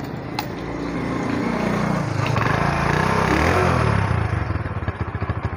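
Honda motorcycle engine running close to its chrome exhaust, rising in level over the first few seconds as it is revved, then settling into a fast, even putter of exhaust pulses; it cuts off suddenly at the end.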